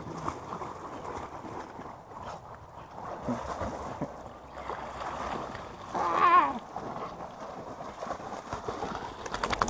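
Dogs swimming and wading through shallow lake water, splashing and sloshing steadily. A short, high, wavering cry comes about six seconds in.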